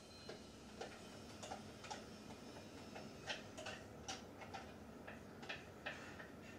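A spoon tapping and scraping against a food processor bowl and a glass measuring jug while emptying out cooked ground meat: a faint, uneven run of light clicks and clinks, about two to three a second.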